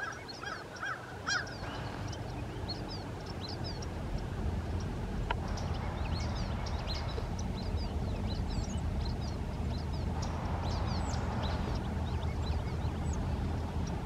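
Brown-headed nuthatches giving squeaky calls: many short, high chirps in loose series, with a cluster of lower squeaks in the first second or so, over a low steady rumble.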